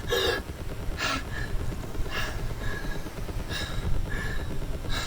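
A person breathing hard, one short breath about every second, over a steady low rumble.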